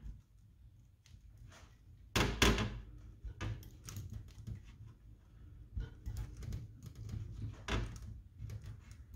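Light clicks and scrapes of a pick and fingers working on the piston end of a Fox shock shaft, prying off a wear band and the small O-ring beneath it. A louder cluster of knocks comes about two seconds in, then scattered lighter clicks.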